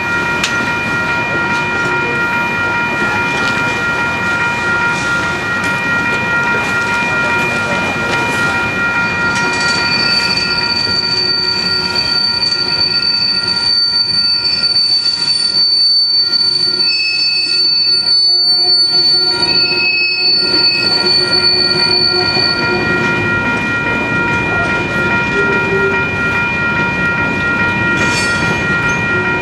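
Freight train cars rolling past with wheels squealing in several steady high-pitched tones over the rumble of the train. A higher squeal joins about ten seconds in and stops a little after twenty-two seconds.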